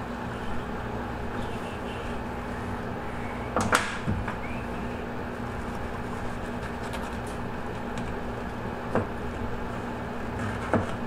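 Steady room hum with a few sharp knocks on a stainless steel table as the skinned bass and tools are handled. The loudest knock comes about four seconds in, with two lighter ones near the end.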